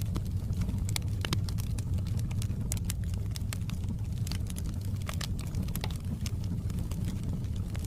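Wood fire crackling, with irregular sharp pops and snaps over a steady low rumble of the flames.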